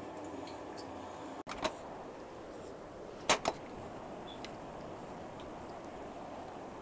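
Bread slices shallow-frying in hot oil: a steady sizzle with a few sharp clicks and pops, the loudest two close together about three seconds in.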